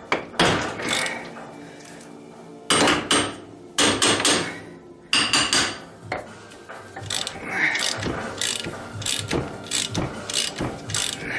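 Ratchet handle turning the forcing screw of a hub puller that presses an ATV's rear wheel hub off its axle. There are several loud, rasping metallic strokes in the first half, then a steady run of ratchet clicks, about three a second, from about seven seconds in.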